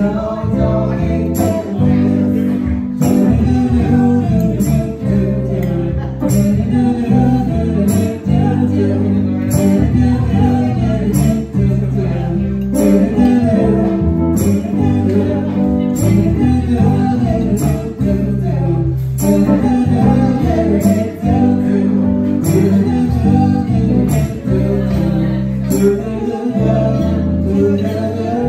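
Live band playing: electric guitar, electric bass and a drum kit with cymbals keeping a steady beat.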